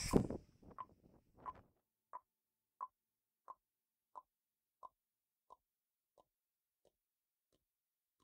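Dense background sound breaks off about half a second in. It is followed by a string of short, evenly spaced ticks, about three every two seconds, each fainter than the last until they die away, like a decaying echo.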